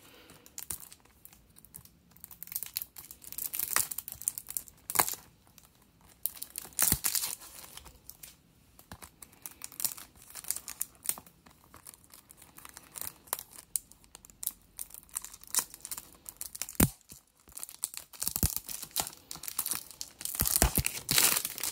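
Plastic shrink-wrap being torn and peeled off a Blu-ray case. It comes as scattered crinkles, rustles and sharp clicks, which grow busier and louder near the end.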